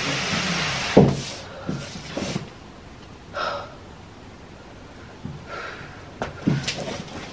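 Cardboard moving boxes being set down and shifted on a carpeted floor: dull thumps, the loudest about a second in and several more near the end, with a couple of short breaths of effort in between.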